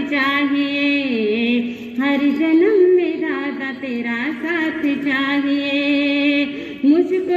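A Jain nun singing a devotional song alone, without instruments, holding long notes and ornamenting them with wavering turns.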